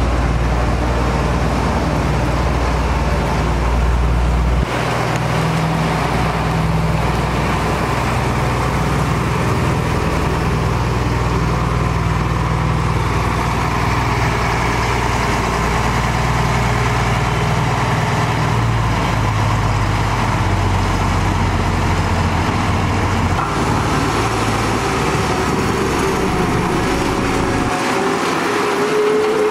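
Diesel engines of heavy road-construction machinery running, a steady low drone whose pitch shifts a few times as the machines work.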